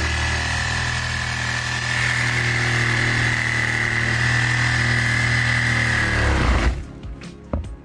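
An engine running steadily at a constant speed, with a steady high whine over its low hum, stops suddenly about six and a half seconds in.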